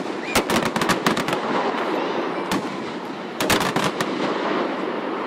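Aerial fireworks exploding: a rapid string of sharp bangs and cracks about half a second in, then another quick cluster of bangs about three and a half seconds in, over a steady noisy background.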